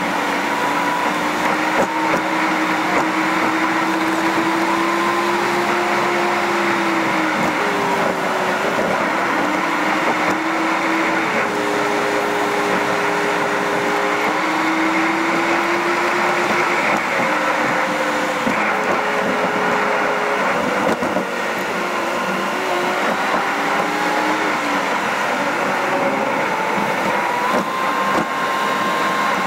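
Car interior noise at cruising speed: steady road and tyre noise from studless winter tyres under a continuous engine hum whose pitch drifts and steps up and down with changes in speed.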